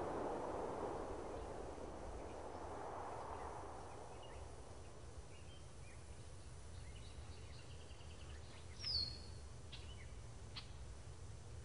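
Quiet outdoor ambience: a steady low rumble, with a rushing noise that fades away over the first few seconds. Faint bird chirps come in the second half, the clearest a short falling chirp about nine seconds in.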